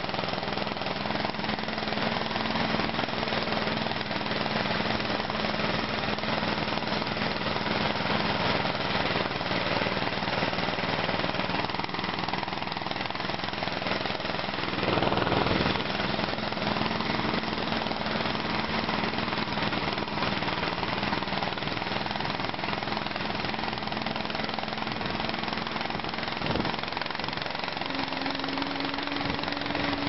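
Small engine of a motorized snow tow running steadily under way, a rough, rapid drone over the noise of the ride. Its pitch steps up near the end as it speeds up, with a couple of short thumps from the ride about halfway and a few seconds before the end.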